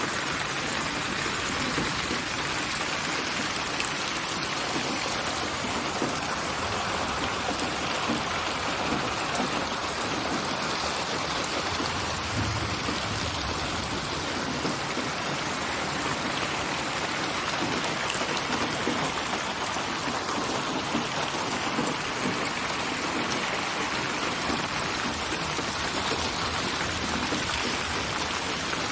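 Steady rain falling, a continuous even hiss of drops with no pauses or surges.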